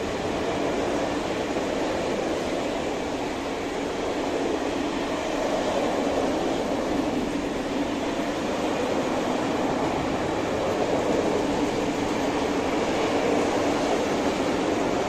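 Loaded open coal wagons of a long freight train rolling past: a steady rumble of steel wheels on the rails.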